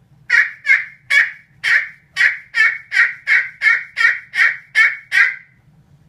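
Very small handmade turkey pot call played with a pecan striker with a cocobolo top: a run of about thirteen sharp, really high-pitched yelps, a little under three a second, each falling in pitch. The maker doesn't think it sounds anything like a turkey.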